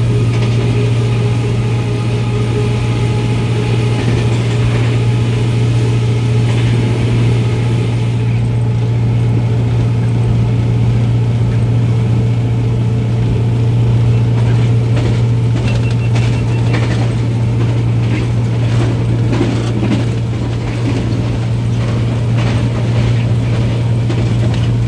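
Diesel locomotive running under power with a steady deep engine drone, overlaid from about eight seconds in by rapid metallic clicking and knocking of the wheels and running gear on the track.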